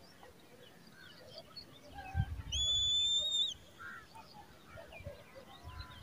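Eagle chick giving one high, thin whistled call about two and a half seconds in, held for about a second with a slight rise and a drop at the end. Faint scattered chirps and a few low thumps lie around it.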